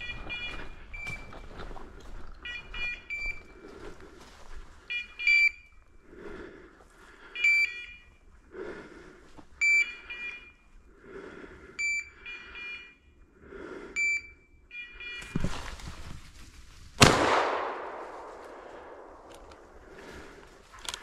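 A hunting dog's electronic beeper collar sounding short high beeps every second or two over rustling through undergrowth, then a single loud shotgun shot about 17 seconds in, echoing away through the woods.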